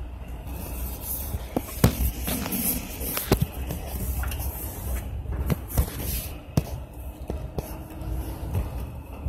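Cabin noise of a Dodge ProMaster van on the move: a steady low engine and road rumble with frequent short clicks and knocks from rattles and handling.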